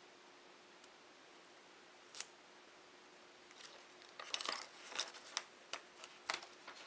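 Protective plastic film being peeled off the front of a new laptop LCD panel: a single crackle about two seconds in, then a run of sharp crackles and snaps over the last three seconds.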